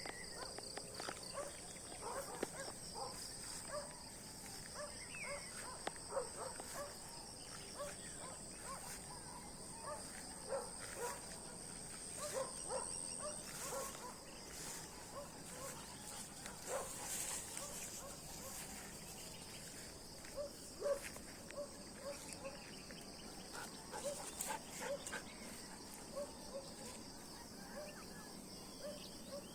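Steady high insect buzzing in two tones, one stopping about halfway, with many short animal calls scattered throughout.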